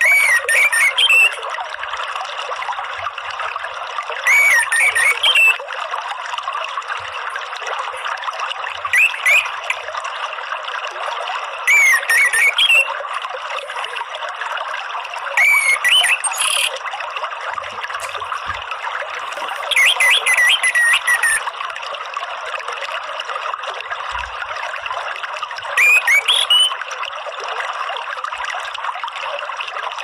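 Orange-headed thrush (anis merah) singing short, loud phrases, about seven in all, each roughly a second long and several seconds apart, over a steady bed of running water.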